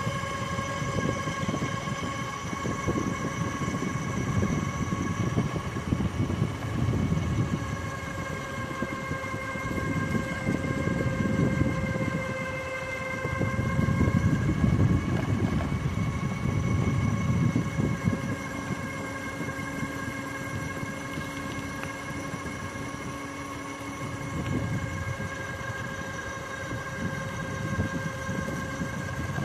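E-bike front hub motor whining steadily while riding, one high whine with overtones that dips and rises a little in pitch about halfway through, over gusty, rumbling wind noise on the microphone.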